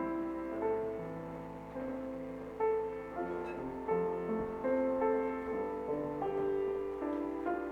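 Slow piano music, single notes and chords struck and left to ring, changing about every half second to a second.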